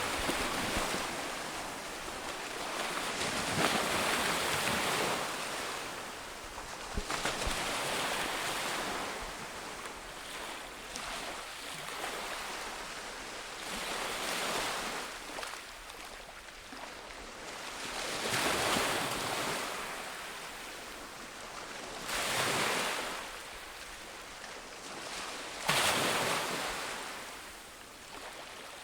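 Ocean waves breaking on a beach, about six surges of surf, each swelling up and washing away over a few seconds, the last two starting more sharply.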